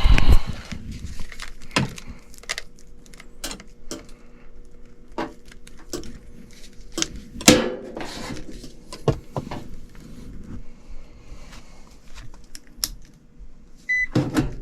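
Irregular metallic clinks, taps and knocks of tools and furnace parts being handled, over a faint steady electrical hum. A short high beep comes near the end.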